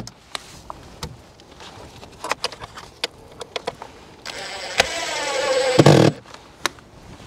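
Makita cordless drill-driver driving a self-tapping screw into a wooden roof batten: one motor run of nearly two seconds about four seconds in, its pitch rising slightly, ending in a thump. Before it, small clicks and knocks of the tool and screws being handled.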